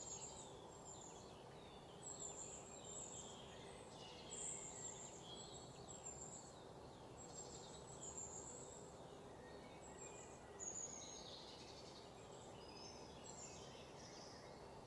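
Faint bird chirping, many short scattered calls, over a steady low background noise.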